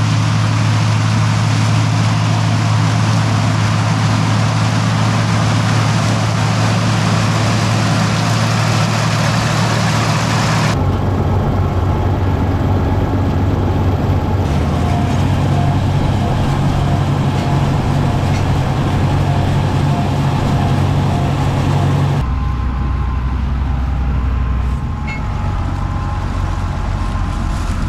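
Farm tractor engine running steadily under load, a constant low drone. The sound shifts abruptly twice, at about a third and two-thirds of the way through.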